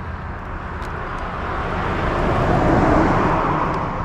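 A vehicle passing: a rushing noise that swells, peaks about three seconds in, then fades, over a steady low hum.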